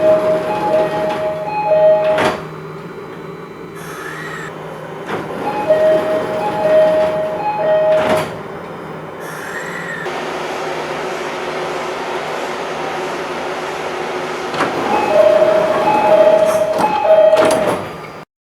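E501 series EMU door chime: a two-note chime repeated three times, heard three times over. Each time it is followed by a sharp knock as the sliding doors shut, over the steady hum of the standing train.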